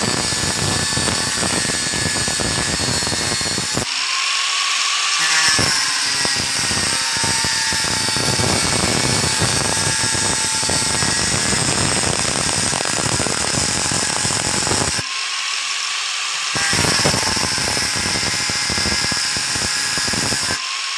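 Angle grinder with an abrasive cut-off disc cutting into the copper windings of a tile-cutter armature: a loud, steady grinding noise over the motor's high whine. The grinding breaks off briefly about four seconds in, again about fifteen seconds in, and near the end, leaving the whine, which rises in pitch.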